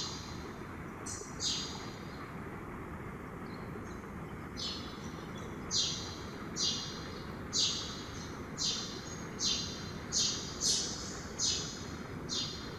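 Mountain river rushing steadily, with short high bird calls over it: a few scattered at first, then repeated about once a second from the middle on.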